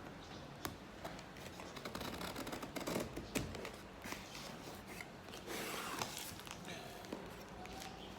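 Packaging and small items being handled by hand: irregular rustling, scraping and light clicks, a little louder around the middle.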